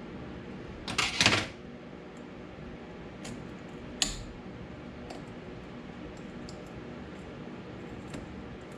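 Small metal clinks of tools and parts being handled: a short clattery rattle about a second in, a sharp click about four seconds in, and a few faint ticks, over a steady hum.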